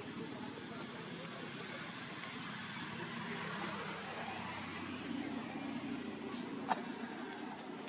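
Steady outdoor background noise with a constant high whine in it, a few faint high chirps in the second half, and one sharp click near the end.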